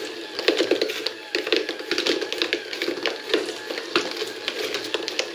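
Rapid, irregular run of small hard taps and clicks on a cardboard marble-run model, several a second.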